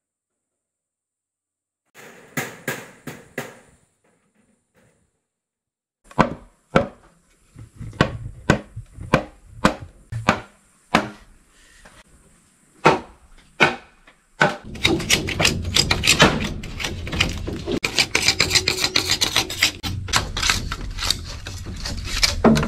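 Hand-tool work on a building site: hammer blows on wood, struck singly about one to two times a second. From about halfway in this gives way to a dense run of fast scraping and knocking.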